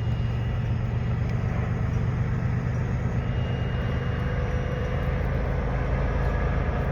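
Diesel locomotives at the rear of a slow-moving freight train running past, a steady low engine drone over general rumble.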